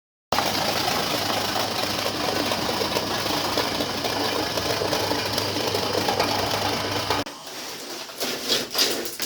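Cassava shredding machine running, a steady mechanical whirr over a low motor hum that starts suddenly and cuts off about seven seconds in, leaving quieter, irregular clattering.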